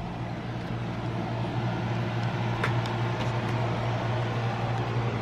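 A steady mechanical hum with a rushing noise above it, slowly growing louder, with a couple of faint clicks about halfway through.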